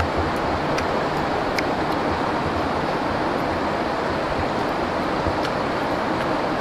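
Steady, even rushing noise, like nearby running water or wind, with a few faint high ticks.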